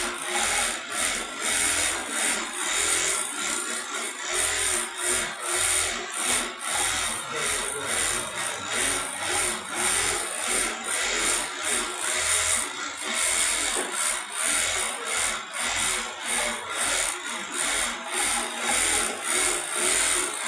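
Automatic pattern sewing machine running continuously, its needle stitching a quilted zigzag pattern through thick cotton jacket fabric, with a rapid, uneven mechanical rattle.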